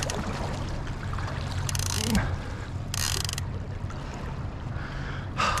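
Fishing reel ratcheting in two short clicking bursts, about two and three seconds in, as a hooked sturgeon is fought on the rod. Underneath is the steady low hum of the boat's engine running.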